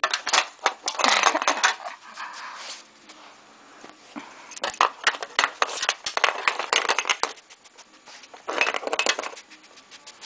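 Treat-puzzle cups and pieces clattering and scraping as a fox noses and knocks them over hunting for treats, in three bursts of quick clicks and knocks.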